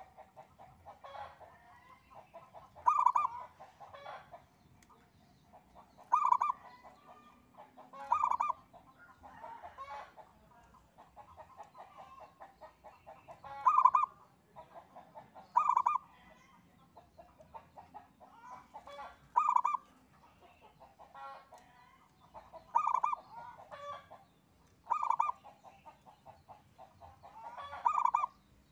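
Zebra dove (perkutut) cooing: a loud short coo every two to three seconds, with soft rapid staccato notes in between.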